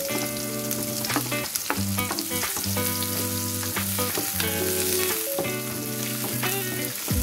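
Sliced shallots, chilies, lemongrass and bilimbi sizzling in oil in a metal wok as a wooden spatula stirs them, with frequent scrapes and knocks against the pan. Background music with held notes plays underneath.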